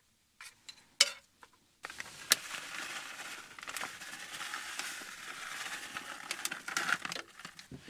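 Plastic bag of shredded cheese crinkling as it is shaken and squeezed out over a lasagna, starting about two seconds in and lasting some five seconds. A few short clicks and taps come before it.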